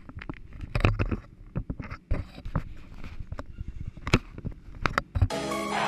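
A string of irregular sharp clicks and knocks with a few low thuds, with no engine running. Music starts about five seconds in.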